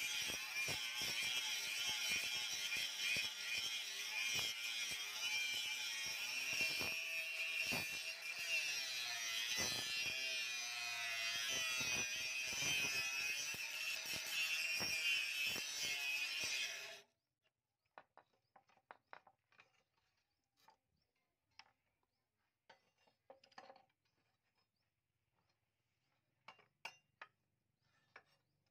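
Angle grinder with an abrasive disc grinding the edge of a steel blade cut from a chainsaw bar: a steady high whine with grinding hiss that cuts off suddenly about 17 seconds in. After that, only faint scattered clicks and taps.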